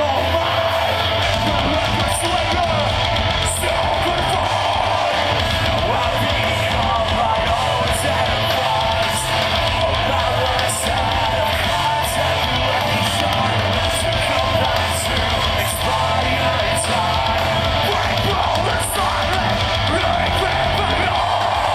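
Metalcore band playing live: distorted electric guitars, bass and drums under harsh shouted vocals, loud and continuous, picked up by a phone recording from the crowd.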